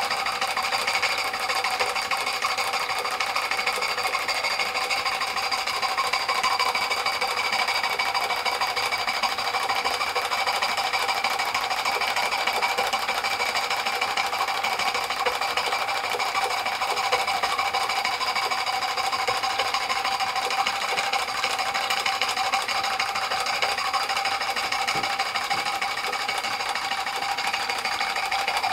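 Märklin 16051 twin-cylinder stationary steam engine running steadily on live steam, driving a belt-driven model water pump: a fast, even mechanical clatter with a steady high whine.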